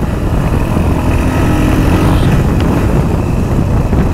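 Royal Enfield Hunter 350's single-cylinder engine running while the motorcycle is ridden along, under a loud, steady rush of wind noise on the microphone.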